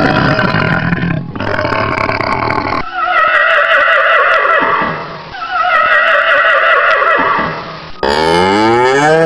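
A run of separate farm-animal calls: a rough growling call, then two long drawn-out calls that fall slightly in pitch, then near the end a cow starting a moo that rises in pitch.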